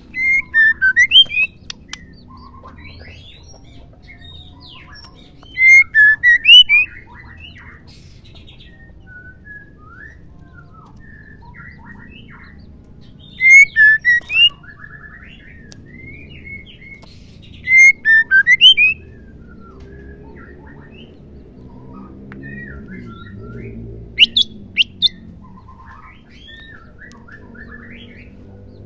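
Female white-rumped shama calling: five short bursts of quick, slurred whistled chirps, each about a second long and several seconds apart, with softer scattered notes between them. This is the female call keepers play to spur male shamas into full song.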